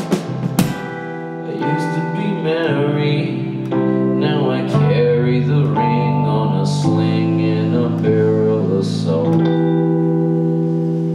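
Live music: a few last drum hits at the very start, then an electric keyboard playing slow, held chords as the song draws to its close.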